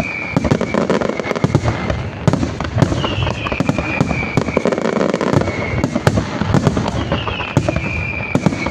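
Fireworks finale barrage: aerial shells bursting in a dense, irregular string of bangs and crackles, with a high falling whistle recurring about every four seconds.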